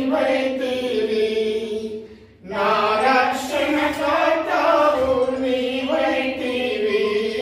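Voices singing a hymn together in long, held notes, with a short break for breath about two seconds in.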